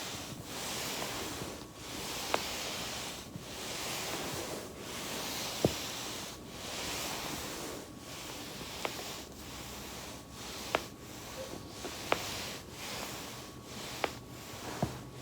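Back working over a foam roller: a rhythmic rustling swish about every second and a half, with about seven sharp pops of joints cracking scattered through.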